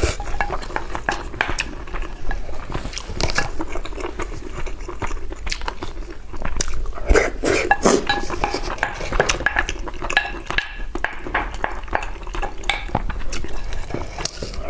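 Utensils clinking against a bowl during eating, many short clinks, with chewing between them.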